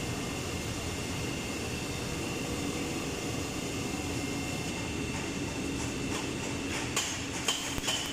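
Steady workshop machinery noise with a constant high whine and a lower hum, and a few sharp clicks near the end.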